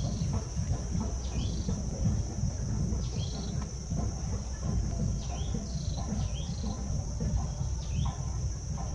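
Riverside ambience: a steady high-pitched insect drone, with short falling chirps repeating every second or two and a constant low rumble underneath.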